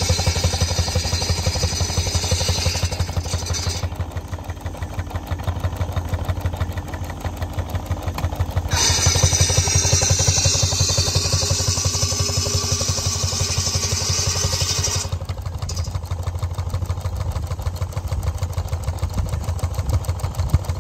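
One-third-scale Case steam traction engine running, its exhaust chuffing in a rapid, steady beat as it drives a buzz saw by a flat belt. A higher hissing, whining sound rides over the beat for the first few seconds and again from about nine to fifteen seconds in: the buzz saw cutting cordwood.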